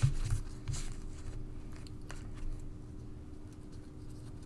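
Hands handling a ribbon bow and a card on a craft mat: two brief rustles with soft bumps in the first second, then faint scattered rustling and small clicks over a faint steady hum.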